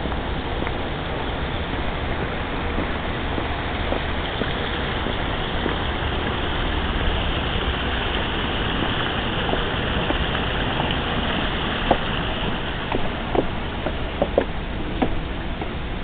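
Steady rush of falling water from a garden waterfall, with a few sharp taps in the last few seconds.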